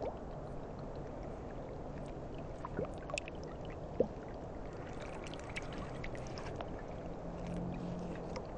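River water lapping and trickling around a landing net held in the shallows, with scattered small drips and plops; one sharp plop about four seconds in.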